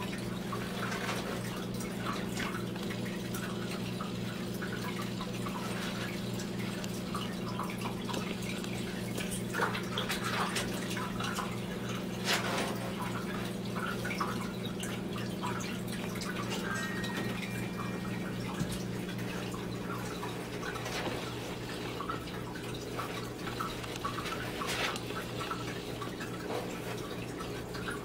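Water dripping and trickling in a small glass tank, irregular light drips and splashes over a steady low hum.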